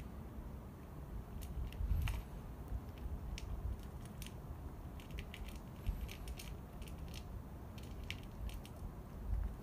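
Cat eating wet food from a small dish: irregular wet chewing clicks and smacks, several a second.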